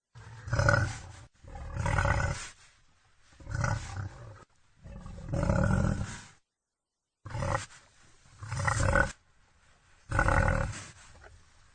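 Wild boar calling: about seven deep, rough calls, each lasting up to a second or so, separated by short pauses.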